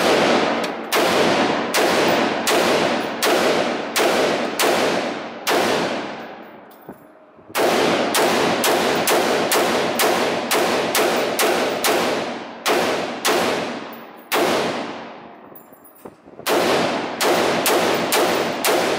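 AR-style rifle fired in strings of quick single shots, about two a second, each crack echoing and dying away in an indoor range. The strings break off briefly twice, about a third of the way in and again about three-quarters through.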